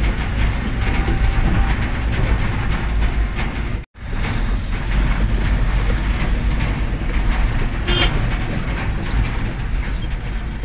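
Steady engine and road rumble heard from inside the cab of a moving vehicle on a rough hill road. The sound cuts out for a moment about four seconds in, then the same rumble resumes.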